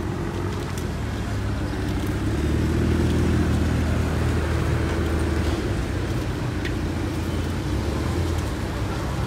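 A vehicle engine running steadily with a low hum, growing a little louder about two seconds in and easing back a few seconds later, as the car is loaded onto a flatbed tow truck.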